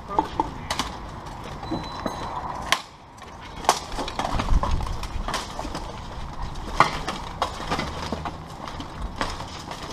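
Armoured fighters sparring: steel plate armour clanking and weapons striking armour, as a series of irregular sharp impacts about once a second, with a brief lull about three seconds in.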